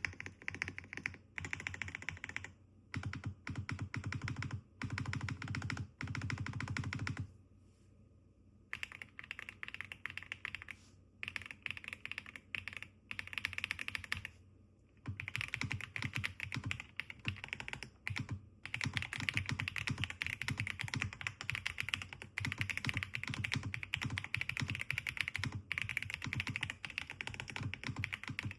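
Typing on a Royal Kludge L75 mechanical keyboard with RK Cream linear switches, a tape-modded PCB and case dampening: muted clacking of rapid key presses. The presses come in bursts, with a pause about seven seconds in, then run as steady fast typing over the second half.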